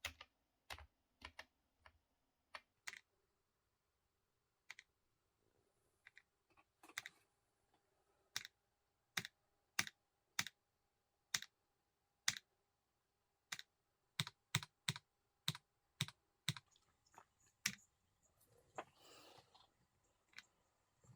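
Keys of a Keychron K1 slim mechanical keyboard pressed one at a time: sharp, separate clicks at an uneven pace, with a pause of about two seconds early on. A brief soft rustle comes near the end.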